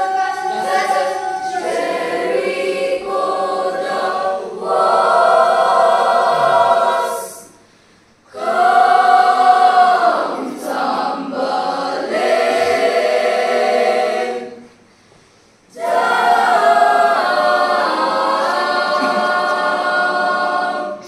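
Girls' school choir singing in long held phrases, breaking off briefly twice (about 8 and 15 seconds in) and ending its last phrase at the close.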